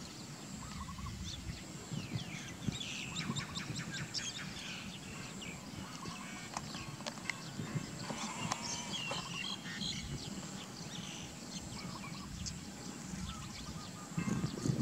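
Small birds chirping and twittering repeatedly over low outdoor background noise, which grows louder near the end.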